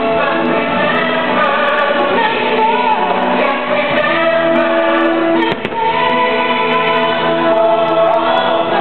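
Choral music from a fireworks show soundtrack, a choir singing long held chords.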